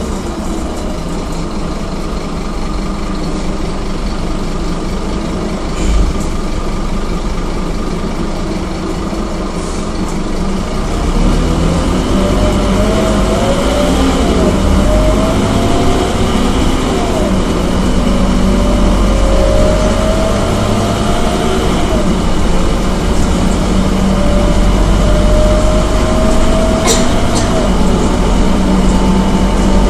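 Scania K230UB city bus's five-cylinder diesel engine and drivetrain, heard from inside the passenger cabin. It runs steadily, then grows louder about a third of the way in as the bus pulls away, with a whine that climbs and drops back several times as it shifts up through the gears. A short thump and, near the end, a sharp click.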